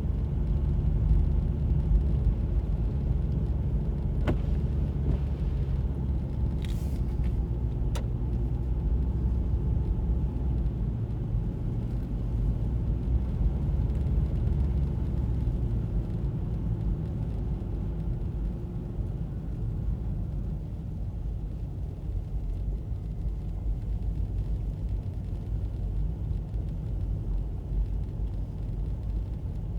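A car driving on a snow-covered road, heard from inside the car: a steady low rumble of engine and tyres. A few light clicks come between about four and eight seconds in.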